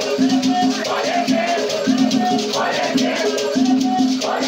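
Afro-Brazilian batuque ritual music: shakers rattling a fast, steady rhythm under chanted singing.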